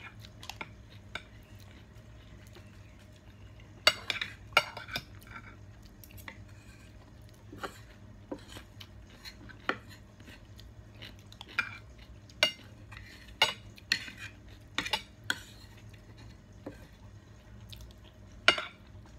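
Metal forks and spoons clinking and scraping against plates and bowls during eating: irregular sharp clinks scattered throughout, over a low steady hum.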